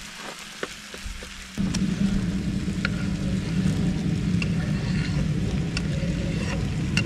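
Chicken frying in a pan, with light crackles and clicks. About one and a half seconds in, a steady low rumble starts suddenly and becomes the loudest sound.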